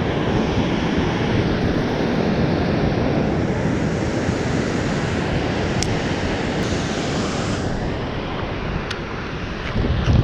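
Steady rushing of water pouring over a river spillway, a continuous even roar with no pitch.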